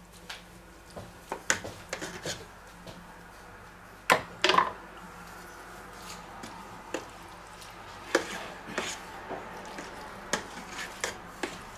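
Plastic ladle and spatula tapping and scraping against metal pans while a thick chili filling of minced meat, beans and corn is scooped and spread, in scattered clicks and knocks with two louder knocks about four seconds in. A faint steady hum lies underneath.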